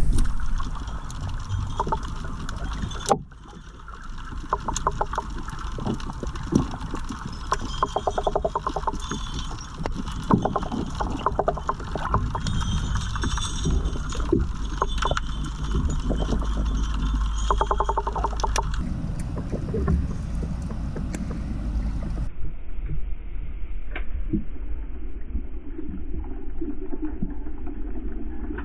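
Underwater sound from a submerged action camera: a steady low rumble with scattered sharp clicks and crackles, including quick runs of rapid clicks. About two-thirds of the way in the sound turns duller and the clicks thin out.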